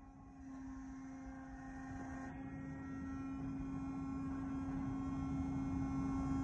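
Steady machinery hum on one low pitch, growing gradually louder.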